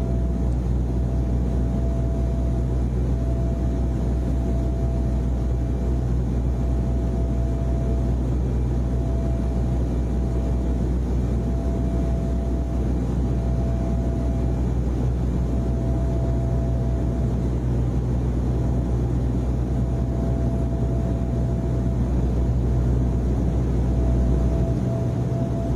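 Steady airliner cabin noise: an even, low drone with a constant hum underneath and a faint tone that breaks in and out.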